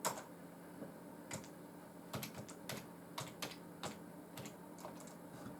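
Computer keyboard keys clicking in short, irregular strokes, a dozen or so, faint, over a low steady hum.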